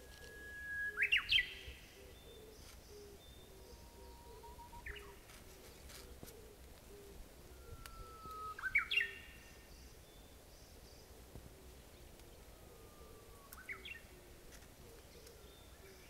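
Japanese bush warbler (uguisu) singing its 'hoo-hokekyo' song three times, each a long held whistle followed by a quick flourish of rising notes; the third song is quieter.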